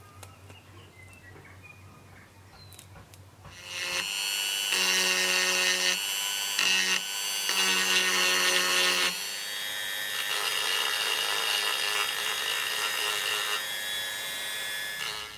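Handheld rotary tool with a small sanding drum running at high speed, sanding a carbon-fibre gimbal arm. It starts about four seconds in as a steady high whine, drops out briefly twice, changes pitch about nine seconds in, and cuts off just before the end.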